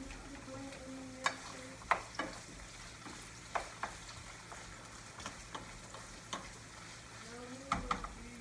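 Pork belly and green beans sizzling in a frying pan, stirred with a wooden spoon that knocks against the pan in irregular sharp taps.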